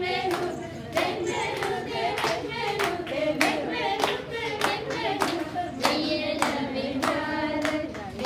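A group of nuns singing together and clapping their hands in time, about two claps a second.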